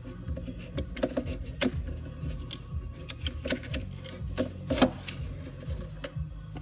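Plastic CD jewel case and its paper booklet handled as the booklet is slid out of the case: scattered clicks and taps, sharpest about one and a half and five seconds in, over a low steady hum.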